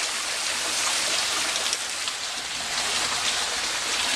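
Heavy rain pouring down in a thunderstorm downpour, a steady hiss with many small drop patters.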